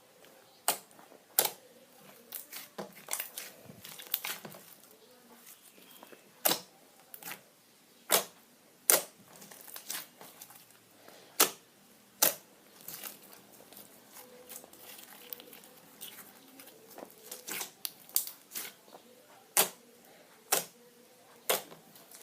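Thick slime squeezed by hand, with sharp, irregular pops and clicks as the air bubbles in it burst, sometimes several in quick succession.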